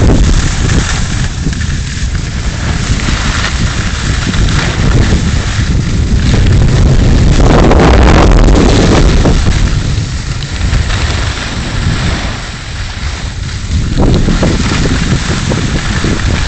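Wind buffeting the microphone of a camera carried by a moving skier, over the continuous hiss and scrape of skis on hard-packed snow; loudest around the middle.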